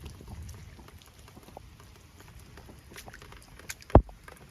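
Heavy rain pattering, with scattered small ticks of drops, and one sharp knock about four seconds in.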